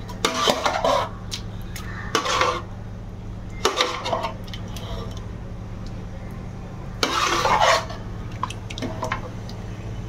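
Steel serving spoon scraping and clinking against a metal cooking pot and a steel plate as thick dalcha is ladled out over rice, in several short bursts with a few sharp clinks. A steady low hum runs underneath.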